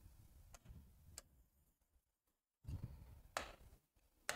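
Faint, sparse ticks of chalk tapping and scraping on a blackboard as a word is written, a few separate taps over the stretch, otherwise near silence.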